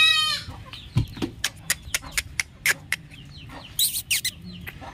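A goat kid bleats once, loud and wavering, right at the start; then a run of short sharp clicks and taps follows, with chickens clucking faintly in the background.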